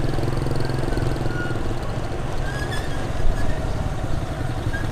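Small motorbike engine running steadily while riding, heard from on board the bike, with road and wind noise and the other motorbikes ahead.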